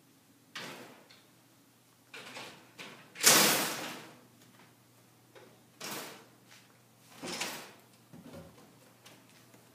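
Sliding door scraping and rattling in its track in a series of rough strokes, the loudest about three seconds in.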